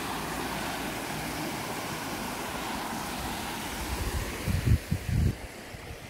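Steady rushing of water from a mountain valley stream. About four and a half to five seconds in, a few low gusts of wind buffet the microphone, and then the rushing grows fainter.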